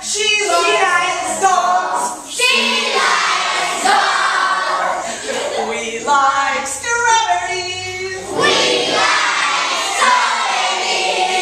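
A group of children singing together in unison, in phrases of a couple of seconds each.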